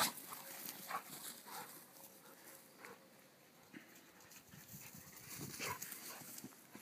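Faint sounds of a Golden Retriever and a black Labrador at play on grass: light panting and short rustling noises as they move about.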